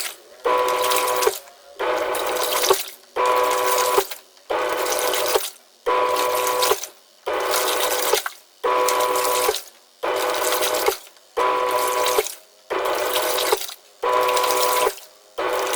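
Twin-tub washing machine's wash tub churning water, its motor humming in bursts of about a second with short pauses between, stopping and starting again roughly every one and a half seconds as the pulsator alternates direction.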